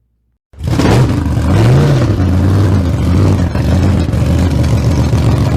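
A loud engine cuts in suddenly about half a second in and runs steadily, revving up and back down once near the two-second mark.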